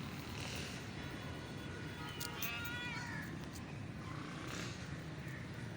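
A street cat meowing: one clear meow about two seconds in that falls in pitch, with fainter calls around it, over a steady low background noise.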